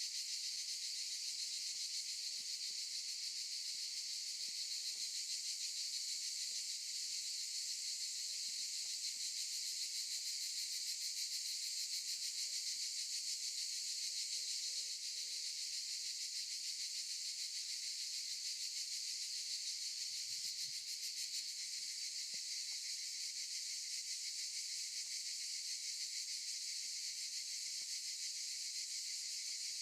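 A chorus of cicadas buzzing, a steady high-pitched drone with a fast, even pulse that holds at the same level throughout.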